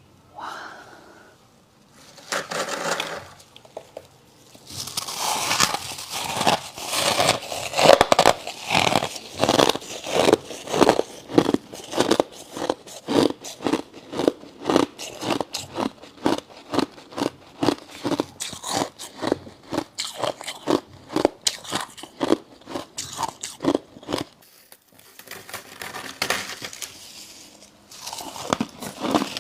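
Person biting and chewing a mouthful of refrozen freezer frost, crunching in a steady rhythm of about two crunches a second, with a short pause near the end before the crunching resumes.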